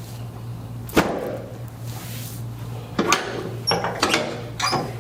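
A sharp thump about a second in, then a run of shorter knocks and creaks from about three seconds on: the sounds of a chiropractic adjustment, with the body moved and pressed on the treatment table.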